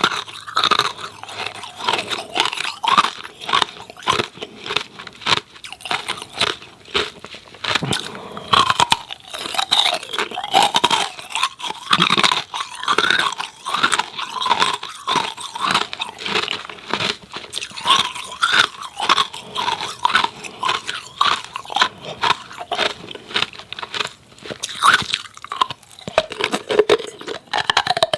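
Hard ice cubes with freezer frost being bitten and chewed close to the microphone: loud, dense, irregular crunching and cracking that runs on without a break.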